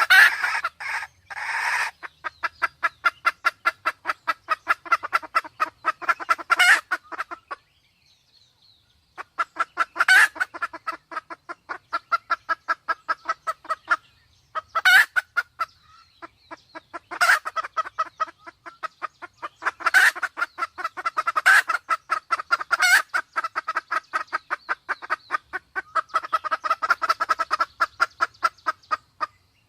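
Red junglefowl clucking in fast runs of about seven calls a second, each run lasting several seconds with brief pauses, and a few louder, sharper calls among them: the excited calling of a hen in breeding condition, used to lure wild junglefowl.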